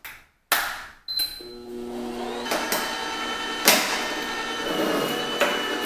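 A Comfee slow juicer's motor starting and running as it crushes strawberries: a steady whine with a high tone, and a couple of sharp knocks from the fruit in the chute.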